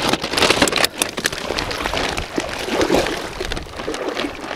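Shallow seawater sloshing and splashing irregularly as a gill net is handled and lifted in it by someone wading.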